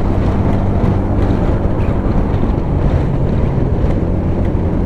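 Wind noise on the microphone of a moving motorcycle, with the motorcycle engine running steadily at cruising speed underneath.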